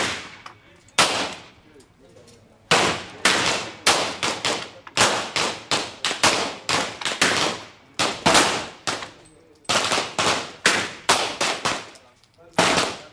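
Several semi-automatic pistols firing along a shooting line: a dense, irregular string of overlapping gunshots, each with a short decaying tail. A couple of single shots come first, and the heavy volley runs from about three seconds in to near the end.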